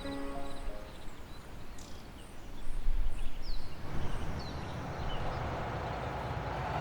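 Outdoor ambience with a few short bird chirps over a low rumble that grows louder about four seconds in.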